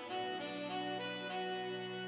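Instrumental background music: a melody of changing notes over a held low note.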